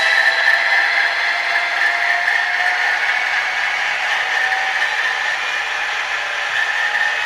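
An H0 model diesel locomotive's sound decoder playing diesel engine running sound through its small onboard speaker. The sound is thin, with no bass, and holds steady with a slight drift in pitch.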